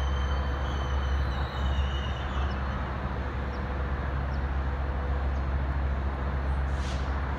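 Metrolink train's EMD F125 diesel locomotive running steadily at a station platform: a constant low engine drone under a steady wash of rail and background noise.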